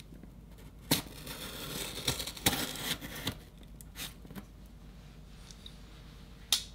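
A knife blade slitting open the tape along the top of a cardboard box: a sharp click about a second in, then about two seconds of scratchy cutting, followed by a few lighter clicks.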